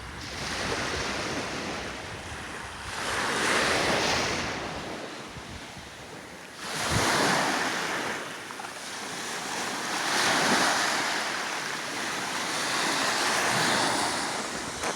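Small waves washing up on a beach, each surge swelling and fading about every three seconds, one arriving suddenly about seven seconds in. Wind rumbles on the microphone in the first few seconds.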